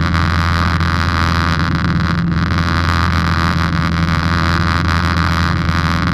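Light aircraft's piston engine and propeller running steadily in flight, a loud, even drone with airflow rushing past the cockpit.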